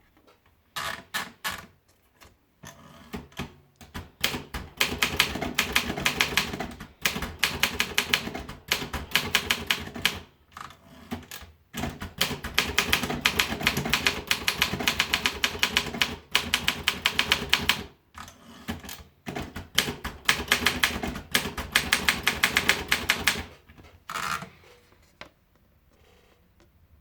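Optima Elite 3 manual portable typewriter being typed on: fast runs of sharp key strikes broken by short pauses, stopping a couple of seconds before the end.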